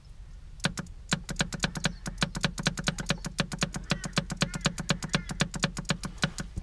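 Fuel dosing pump of a Chinese diesel air heater ticking in a fast, even run, about six times a second, as it is pulsed by hand with a switch to prime a long fuel delivery line.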